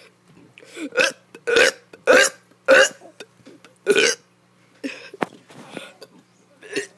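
A child burping in a rapid series of short burps: four loud ones about every half second, a fifth a second later, then several fainter ones.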